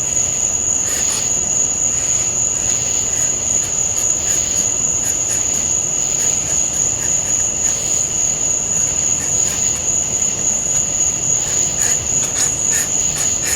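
Crickets trilling steadily in one high, unbroken tone.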